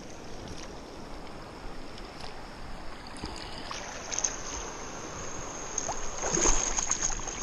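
Shallow creek water splashing and sloshing around the legs of a person wading, over a steady rush of flowing water; the splashing grows louder about six seconds in.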